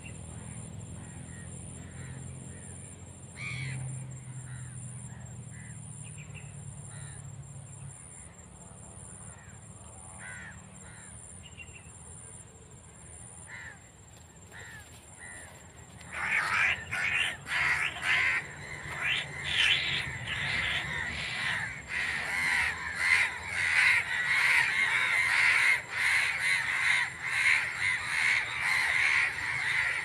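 Crows cawing loudly and over and over, starting suddenly about halfway in, as a crow is caught in a mist net and other crows gather over it. Before that, only faint scattered bird calls over a low hum.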